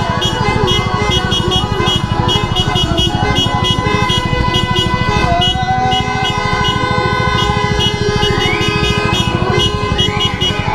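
Car horns honking and music with a steady beat, over a motorcycle engine idling.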